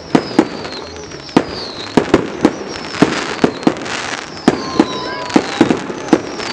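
Fireworks display bursting overhead: a rapid, irregular run of sharp bangs, about two or three a second. Short falling whistles come again and again between them.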